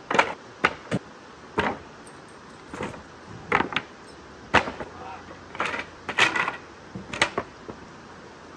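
Hatchet splitting kindling on a chopping block: four sharp chops in the first two seconds, followed by scattered knocks and clatters of wood and gear being handled.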